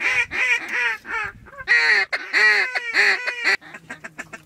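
Duck call blown hard: a fast run of loud, raspy quacks, each bending down in pitch. It breaks off briefly about a second and a half in and tails off near the end.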